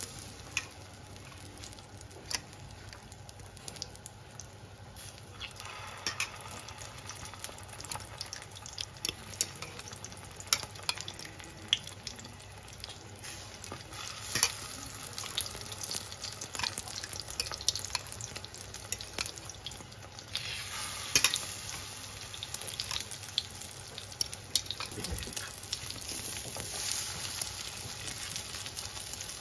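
Egg-coated chicken-and-lentil shami kababs sizzling in hot oil on a flat iron tawa, with scattered clicks and scrapes of a spoon and fork against the pan. The sizzle grows louder in the second half as more kababs go in.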